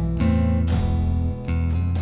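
Background music led by strummed acoustic guitar, with chords struck about every half second.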